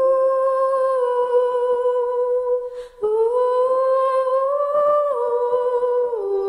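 A wordless vocal melody hummed in long, held notes that step up and down in pitch. There is a short break with a quick breath about three seconds in.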